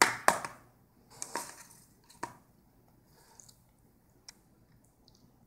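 Plastic fork scraping and knocking in an aluminium foil pie tin: a loud crinkly scrape at the start, another about a second later, then a sharp click and a few lighter ticks.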